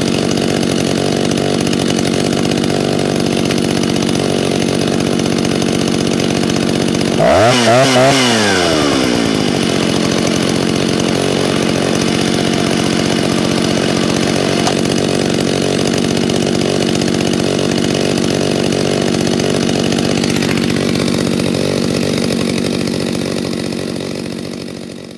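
Stihl 08-S two-stroke chainsaw idling on the ground, with one brief rev about seven seconds in that drops back to idle. It fades out near the end. The owner finds it idles a little fast, fast enough to keep the chain turning.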